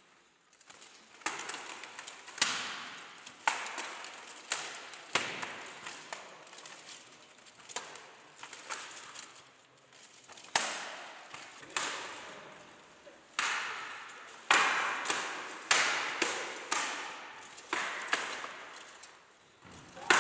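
Blunt steel weapons striking steel plate armour and each other in buhurt sparring: sharp, irregular clangs and knocks, roughly one or two a second with some quick pairs, each ringing on in the echo of a large stone church hall.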